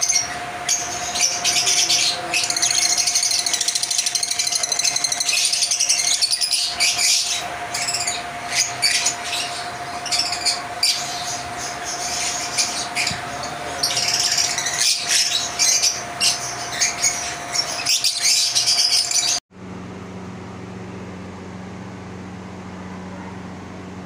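Lovebirds chattering: a dense run of shrill chirps and squeaks with a thin steady tone under it. About nineteen seconds in it cuts off abruptly, giving way to a quieter low steady hum.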